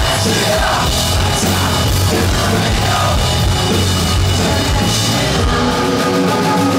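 Rock band playing live and loud, with electric bass guitar and drum kit driving it. The deep bass drops away near the end.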